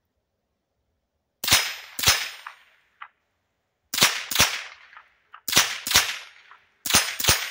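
Bear Creek AR-15-style semi-automatic .22 LR rifle firing eight shots in four quick pairs, the two shots of each pair less than half a second apart, each with a brief ringing tail.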